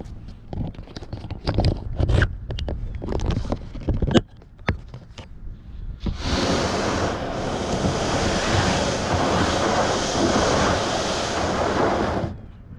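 A string of knocks and scrapes over the first four seconds, then a steady rushing of wind and waves that starts suddenly about six seconds in and cuts off abruptly near the end.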